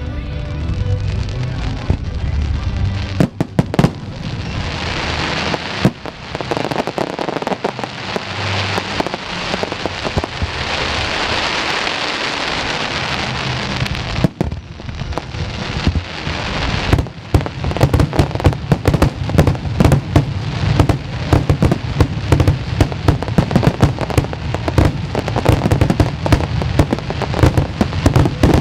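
Aerial fireworks display: a dense crackling hiss of shell bursts through the first half, then from about 17 seconds in a rapid barrage of many bangs in quick succession.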